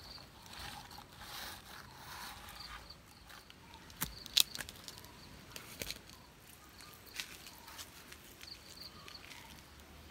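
Faint outdoor ambience: insects chirping on and off in a high steady tone, with a few sharp clicks about four seconds in and another near six seconds.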